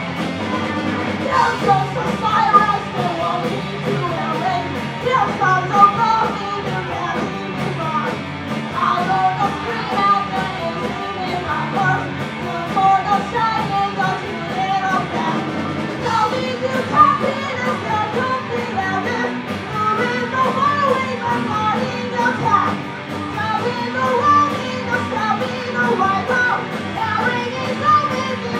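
Live rock band playing a song: a singer's voice over electric guitar, bass, drums and keyboard, with an even drum beat.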